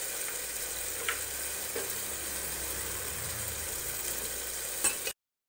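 Onion-tomato masala frying in oil in an aluminium pressure cooker, a steady sizzle with freshly added ground spices on top, during the bhuna stage before the taro goes in. A few light clicks, and the sound cuts off suddenly near the end.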